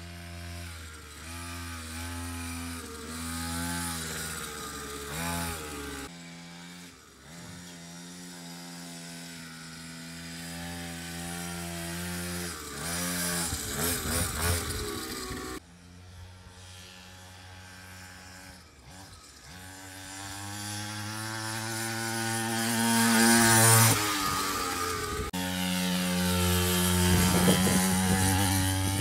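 Small two-stroke engine of a 49cc mini dirt bike running and revving up and down while it is ridden, its pitch rising and falling. It gets louder around the middle and again near the end as the bike comes close.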